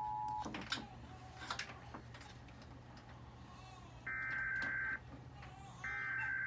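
US Emergency Alert System alarm played back: the steady two-tone attention signal, which sounds like a dial tone, cuts off about half a second in. After a few quiet seconds with scattered clicks, two screeching bursts of the digital data code, each about a second long, come about four and six seconds in; they are the end-of-message signal that closes an alert.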